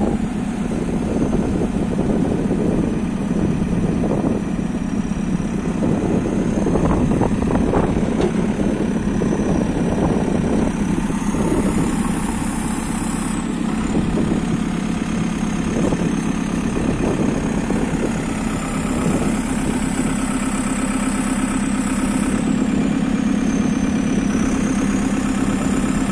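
Diesel engine of a 2010 JCB 3CX backhoe loader (68.6 kW) running steadily at idle, with a faint high whine that rises and falls in pitch.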